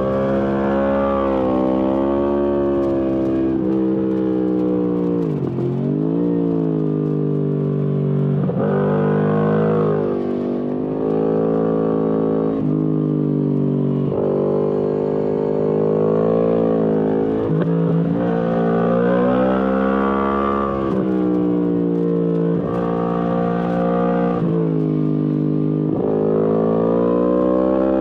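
Yamaha MT-10 SP's crossplane inline-four through an Akrapovic exhaust under riding load. The revs climb and fall again and again, with several sudden drops in pitch at gear changes and on the throttle between corners.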